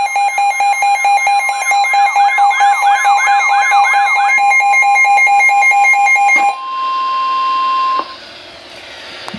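Layered electronic alert tones: a fast up-and-down siren wail over rapidly pulsing beeps, giving way after about four seconds to a single steady tone that cuts off sharply near the end, followed by faint radio static.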